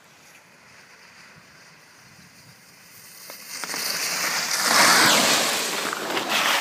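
Sit-ski and the standing skier's skis scraping and hissing over packed snow, faint at first, then swelling to a loud hiss as they sweep past close by about four to five seconds in.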